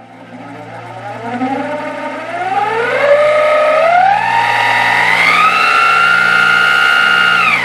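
Small DC motor of a homemade bench saw, run through a PWM speed controller, whining up in pitch in steps as the speed knob is turned up, then holding a steady high whine. A low steady hum runs underneath, and the pitch starts to drop just at the end.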